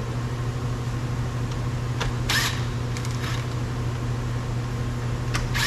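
A steady low hum with three short scraping or clicking handling noises, from work on a car door's screws.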